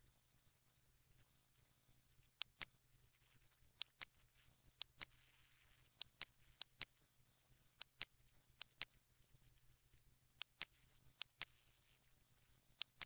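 Computer mouse button clicking: about ten quick pairs of sharp clicks at irregular intervals, over a faint steady hum.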